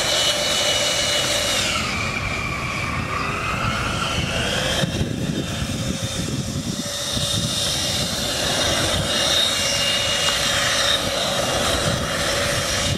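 Electric motor of a homemade RC jet boat whining at full throttle. Its pitch drops about two seconds in and climbs again later, over the rushing splash of water churned up by the jet.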